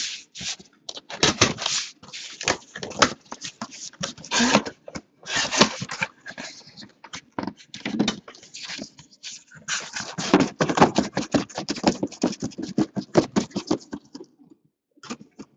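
Cardboard case being opened by hand: a quick, irregular run of rasps and scrapes as the flaps are pulled open and the boxes inside are slid out against the cardboard, with a short pause near the end.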